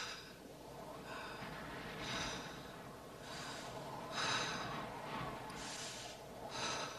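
Faint heavy breathing: about seven breathy puffs, roughly a second apart.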